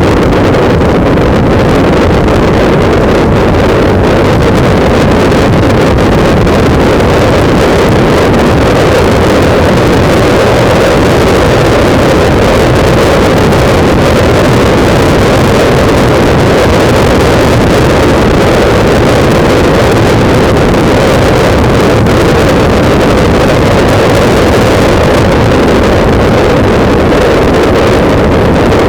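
Loud, steady wind buffeting the microphone of a camera mounted on a moving motorbike: a dense low rumble with no breaks.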